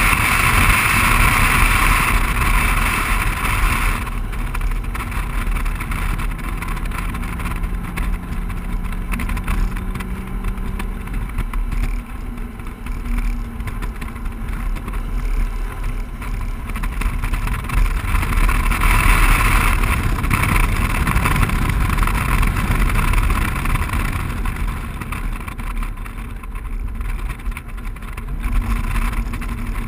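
BMW 135i's turbocharged straight-six under load on a race track lap, mixed with heavy wind and road rush on an exterior-mounted microphone. The rush swells at the start and again about two-thirds through, and a faint rising engine tone comes through about a quarter in.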